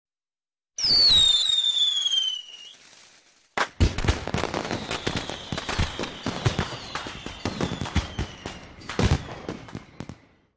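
Fireworks sound effect: a shrill whistle falling in pitch for about two seconds, then a bang about three and a half seconds in, followed by a long run of crackling pops.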